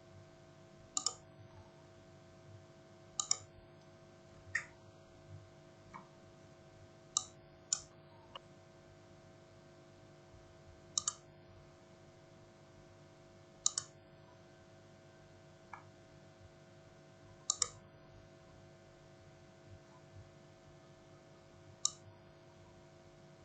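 Scattered clicks of a computer mouse, single and in quick pairs, every one to four seconds, over a faint steady hum.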